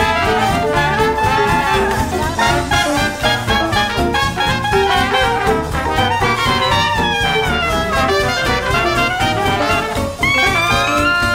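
Background music: upbeat jazz with brass over a steady beat, a new phrase of held notes coming in about ten seconds in.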